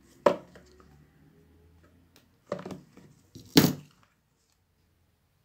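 Small cardboard product boxes handled and set down on a table: a sharp knock just after the start, a short clatter at about two and a half seconds, and the loudest knock at about three and a half seconds.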